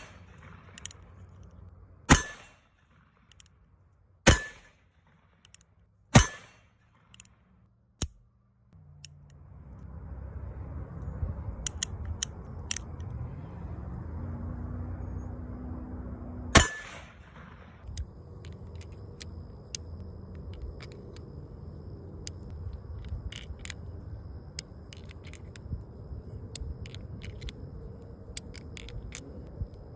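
Handgun shots, four loud ones about two seconds apart and a fifth softer, each ringing briefly. A rumbling handling noise follows, then one more shot about halfway through, then many light clicks and rattles.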